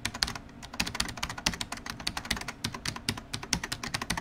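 Computer keyboard typing sound effect: a rapid, uneven run of sharp key clicks, many per second.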